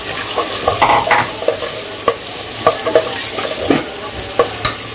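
Freshly added sliced onions sizzling in hot ghee and oil in an aluminium pressure cooker as they are stirred: a steady hiss with irregular sharp crackles.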